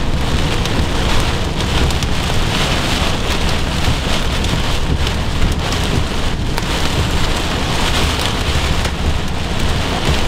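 Heavy rain lashing a moving vehicle in the rear-flank downdraft of a supercell: a dense, steady patter of drops on the roof and windshield over a continuous low rumble.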